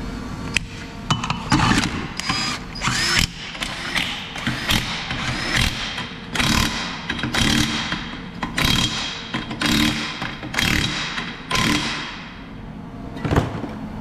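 Power tool run in short repeated bursts, about one a second.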